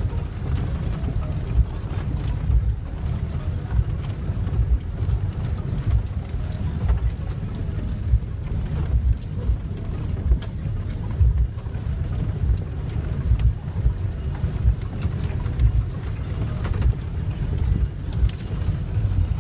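Cabin noise of a vehicle driving on a rough dirt track: a steady low rumble of engine and tyres, broken by frequent knocks from the bumps.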